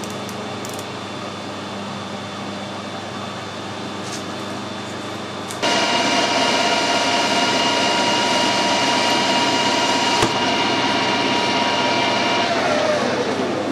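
Metal lathe turning a steel pin. A steady machine hum gives way, about five and a half seconds in, to a sudden louder whine of several steady tones from the running spindle and gearing. Near the end the whine slides down in pitch as the spindle slows to a stop.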